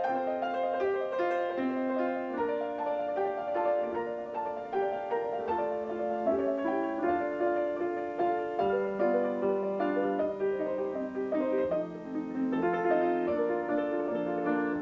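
Background piano music: a steady flow of notes and chords played without pause.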